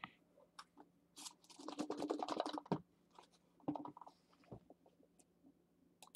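Soft, rapid clicks and scratching close by: a dense burst about a second in that lasts over a second, a shorter cluster near the middle, then a few scattered single clicks.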